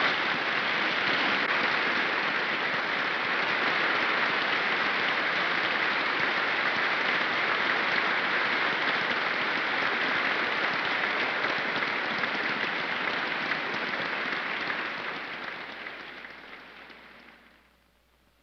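Audience applauding in a steady, dense wave that dies away over the last few seconds to near silence.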